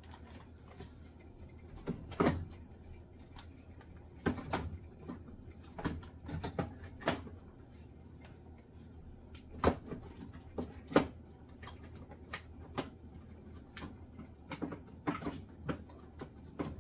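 Scattered knocks and clatters of plastic yogurt cups and other food containers being handled and set down on fridge shelves. The loudest come about two seconds in and again around ten to eleven seconds.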